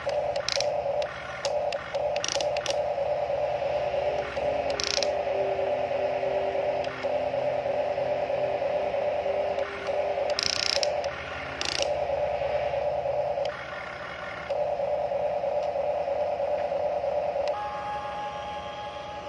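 Huina radio-controlled toy excavator working, a steady whir from its electric motors and gearboxes as the boom and arm lift. The whir breaks off and changes note several times, with a few sharp clicks from the gears.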